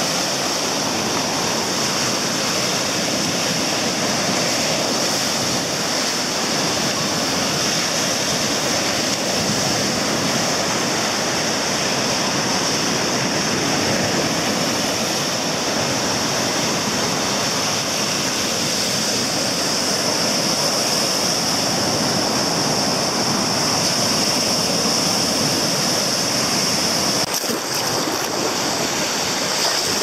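Sea surf breaking and washing up a sandy beach: a steady rush of water. Near the end there is a brief knock, and after it the water sounds different.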